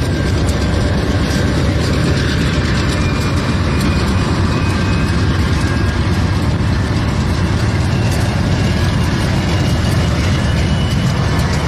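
Diesel locomotive engine running hard, a loud steady low rumble, while it pours out heavy exhaust smoke.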